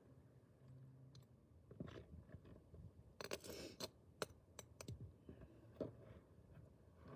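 Hand trowel and hands working dry soil and pulling weeds: faint scattered crunches and clicks. A denser scraping rustle comes about three seconds in, followed by a few sharp ticks.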